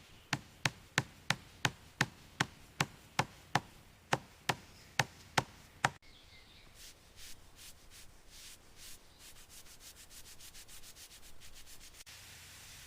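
Wood being worked by hand: about fifteen sharp, even knocks, roughly three a second, then rapid rubbing strokes like sanding that speed up, ending in a steady hiss.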